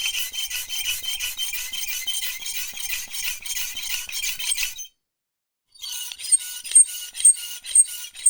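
Bicycle mechanism giving a rapid run of metallic ticks for nearly five seconds. After a brief gap come sharper, ringing metallic clicks about twice a second.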